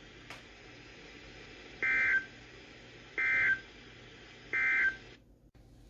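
Three short digital data bursts of the EAS end-of-message code, played over a NOAA Weather Radio broadcast: each a harsh, buzzy chirp about half a second long, evenly spaced about a second and a half apart. They mark the end of the severe thunderstorm warning message. Faint radio hiss runs beneath them and cuts off near the end.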